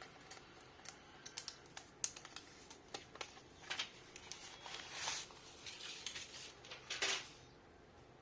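Hands handling a tablet and its packaging: a run of light clicks and taps, with short rustling swishes about four, five and seven seconds in.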